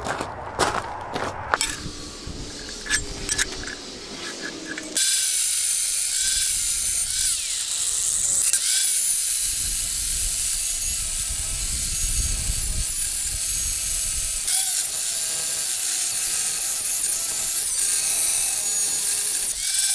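Large angle grinder with a cut-off disc cutting through the steel of a railroad-rail anvil: a steady high hiss and whine that starts suddenly about five seconds in, after a few scattered clicks and knocks.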